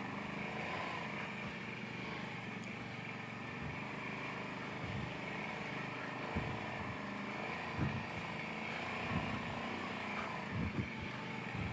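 Kawasaki Brute Force 750 ATV's V-twin engine running steadily as it rides, with a few soft low thumps in the second half.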